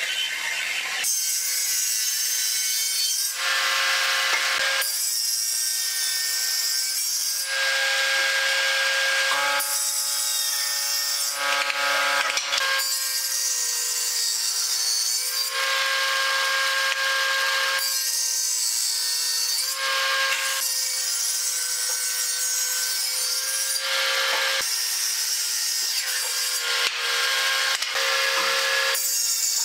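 Hitachi combination woodworking machine's table saw running with a steady tone, its blade cutting into wood again and again as a board stood on end is passed over it to cut slots into its end, one pass every two to three seconds.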